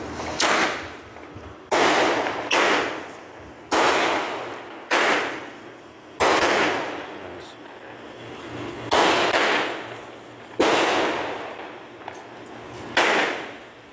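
World Class Bombchickabombomb seven-shot firework cake firing: a string of sharp bangs, roughly one to two and a half seconds apart, each dying away in a long echo.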